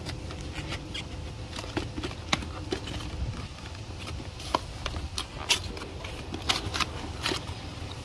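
Cardboard gauge box and its inserts being handled and pulled open: irregular crinkling, scraping and small clicks, over a steady low rumble.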